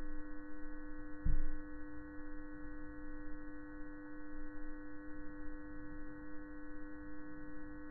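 A steady drone of several held tones, the lowest the strongest, with one dull low thump about a second in.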